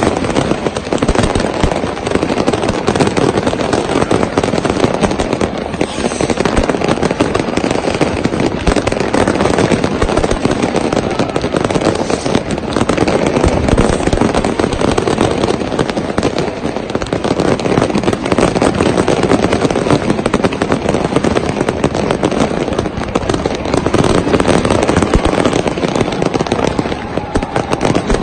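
Many fireworks and firecrackers going off at once: a dense, unbroken crackle of pops and bangs.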